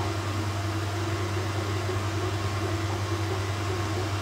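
Sovol SV07 3D printer's gantry-mounted part cooling fan running, a steady whir with a low hum over a hiss. It is extremely loud, close to 77 decibels.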